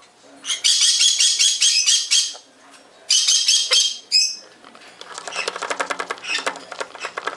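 Quaker parrot chattering in two loud, raspy bursts of quick squawks. About five seconds in, a fast, even mechanical clicking starts and continues.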